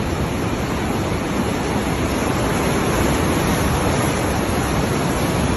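Floodwater rushing in a steady, unbroken rush of noise.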